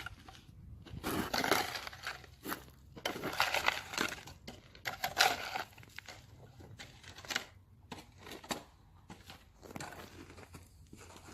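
Irregular crunching and scraping of soil and gravel as the trench over the repaired water pipe is backfilled. Three louder bursts come in the first half, with fainter crunches after.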